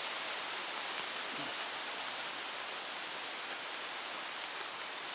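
Steady rushing noise of stormy weather, an even hiss without breaks or pauses.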